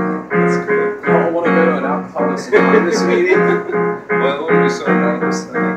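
Electric keyboard with a piano sound playing a mellow song, a steady repeated low note under chords and melody, with an acoustic guitar noodling alongside.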